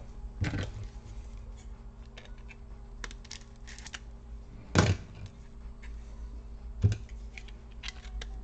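Clicks and light knocks from a laptop's fan and heat-pipe cooling assembly being turned over in the hands, its plastic fan housings and metal parts tapping and rubbing. Three sharper knocks come about half a second, five and seven seconds in, with smaller ticks between them.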